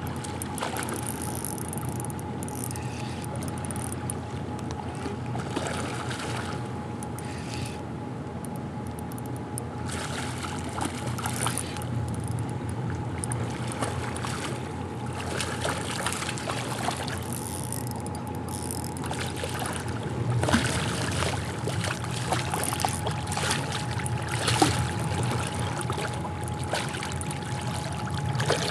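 River water rushing and lapping around a kayak, with scattered splashes and ticks that grow busier in the second half as a hooked smallmouth bass thrashes at the surface during the fight. A faint steady whine sits underneath.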